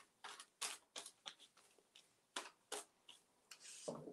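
Faint, irregular crinkling and rustling of a thin clear plastic sheet as it is handled and pressed onto the decoupage paper on the pot.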